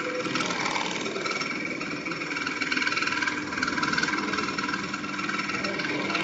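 Computerised pattern sewing machine running steadily as it stitches a trouser-pocket pattern: a fast, even stitching clatter with a steady whine.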